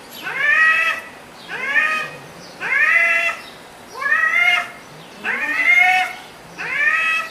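Cat yowling in a standoff with another cat, the low, drawn-out warning calls of an aggressive confrontation. Six calls come about one a second, each arching up and then down in pitch.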